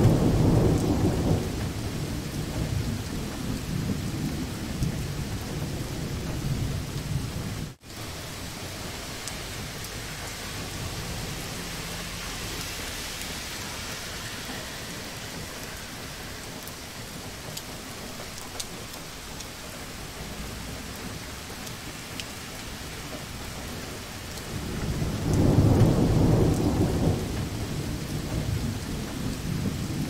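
Heavy rain falling steadily, with rolling thunder rumbling at the start and again about 25 seconds in. Near 8 seconds the sound cuts out for a split second.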